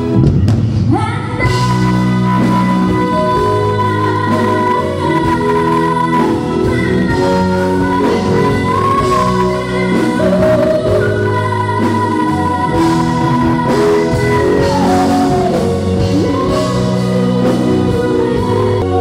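A female singer and a live band (drums, keyboard and guitars) performing a song, the voice holding long notes over the band.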